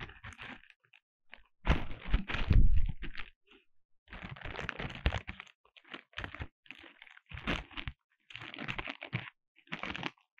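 Plastic courier mailer being torn and handled open, in irregular crinkling, crackling bursts with short pauses between them. The loudest stretch comes about two seconds in.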